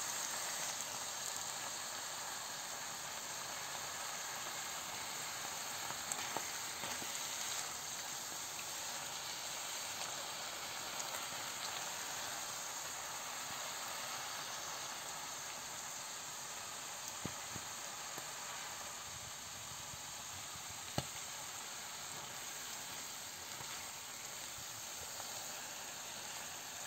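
Slippery jack mushrooms and grated onion frying in sunflower oil in an open pan: a steady sizzle, with a few small ticks and pops.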